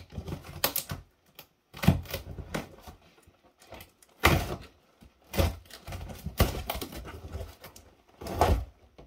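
Packing tape on a cardboard box being slit and torn along the seam and the cardboard flap pulled open: a run of uneven scraping, tearing rasps and cardboard knocks, with several louder strokes among quieter rustling.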